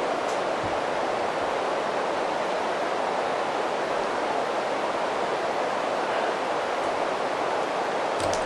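Steady, even hiss of a cheap camcorder's noisy microphone, with a faint tick or two of handling.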